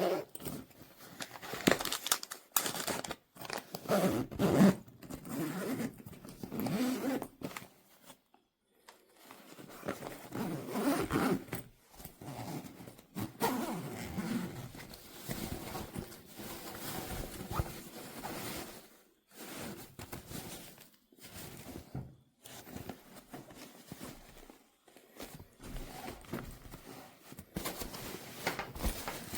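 Zippers on a diaper bag backpack being opened and closed, with the scrape and rustle of the bag's fabric as it is handled, in irregular bursts broken by short pauses.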